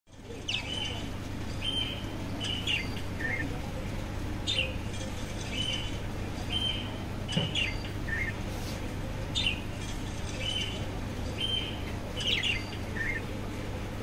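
Budgerigars chirping in short, high calls, several a second apart, some rising and some falling, over a steady low hum.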